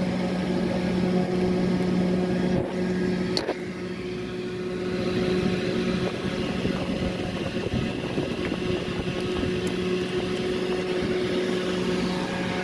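A steady mechanical hum with a constant low tone and an even hiss, like a motor running. Two brief clicks come about three seconds in.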